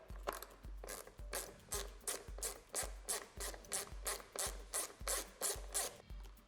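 Torx screwdriver turning the screws out of a blower control unit, a run of even rasping strokes about two a second. A low beat of background music runs underneath.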